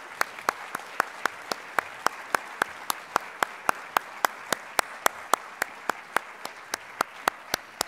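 Audience applauding in an auditorium, with one nearby person's claps standing out sharply at about three or four a second over the general clapping.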